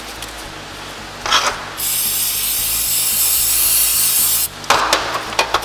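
Aerosol brake cleaner sprayed onto a fuel pressure regulator in one steady hiss lasting about two and a half seconds. Short rubbing and knocking sounds from handling the parts come just before the spray and after it stops.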